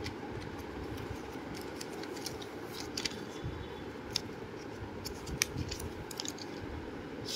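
Light clicks and scraping from handling a freshly opened pack of pencils as one is taken out, a few sharp ticks scattered over a steady low background hum.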